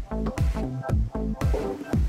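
Electronic dance music with a steady kick drum about twice a second under a pulsing synth bass line.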